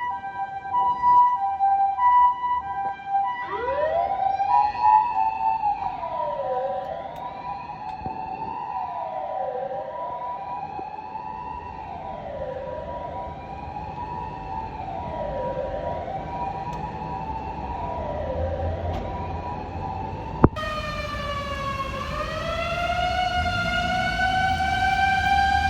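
Japanese fire engine sirens. First a fast two-tone alternation, then a siren wailing up and down about every two seconds over a steady tone. After a sudden cut about 20 seconds in, a siren climbs slowly in pitch while a low vehicle rumble grows louder near the end.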